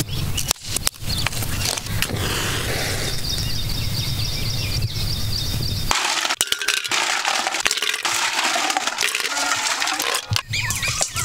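Freshwater snail shells clicking and clattering against a metal pot as handfuls are scooped and dropped in, starting suddenly about halfway through. Before that there is a steady low rumble with a few sharp taps.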